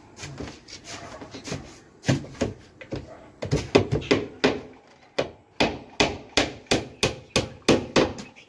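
Hammer driving nails into plywood and timber stair shuttering: a run of sharp knocks, uneven at first, then a steady beat of about three blows a second over the last few seconds.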